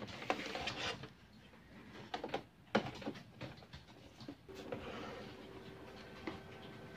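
Gloved hands handling and shifting the plastic case of an HP LaserJet Pro M402dn laser printer, giving irregular knocks and clicks through the first three seconds. About four and a half seconds in, a steady mechanical hum with a few fixed pitches sets in.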